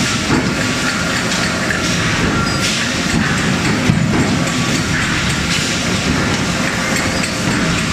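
Steady din of forging-shop machinery, with a few faint knocks.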